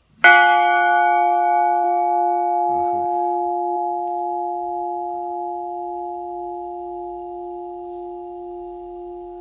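A 240 kg church bell struck once and left to ring. Its high overtones die away within a few seconds while a steady low hum lingers and slowly fades.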